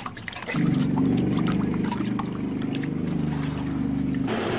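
Water sloshing and small splashes as hands squeeze and turn raw pork hock in a stainless steel bowl of salted water, over a steady low hum from about half a second in. Near the end this gives way to tap water running into the bowl.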